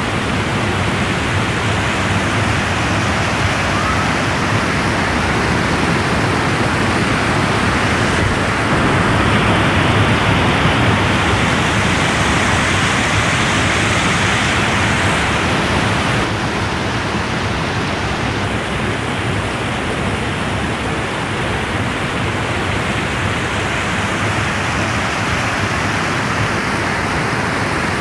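Mountain stream rushing over boulders in small white-water cascades: a steady rushing that swells louder for several seconds around the middle.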